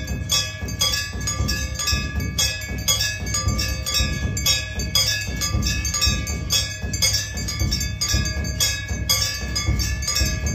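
Temple bells rung for aarti in rapid, even strokes, about three or four a second, each stroke ringing on, with a low beat underneath.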